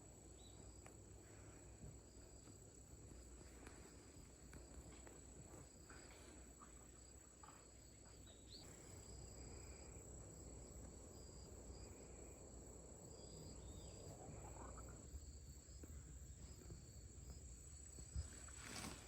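Crickets chirring faintly and steadily in a thin, high, unbroken tone, with a single short knock near the end.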